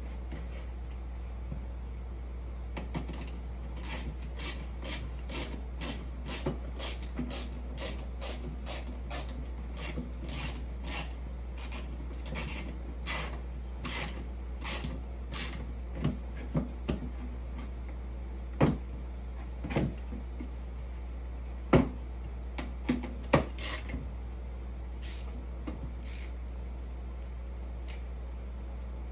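Hand screwdriver driving screws into a wooden step box: a run of short, sharp strokes about two or three a second, then a few louder knocks in the second half.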